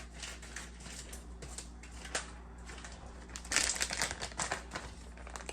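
Crinkling, crunching handling noise made of many short crackles, densest and loudest about three and a half seconds in.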